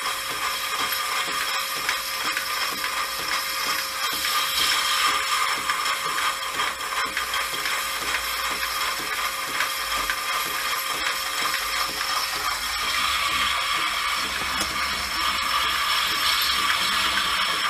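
Motorcycle brake drum being skimmed on a milling machine: the spoked wheel is turned under power by a belt around its rim while a fixed cutting tool takes a cut on the drum's liner. The result is a steady mechanical whir with a dense rattling chatter, which gets sharper about thirteen seconds in.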